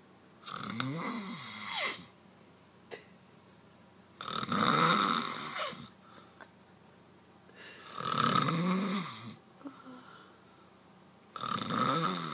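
A man snoring loudly: four long snores, each lasting about a second and a half, coming roughly every four seconds with quiet breathing gaps between.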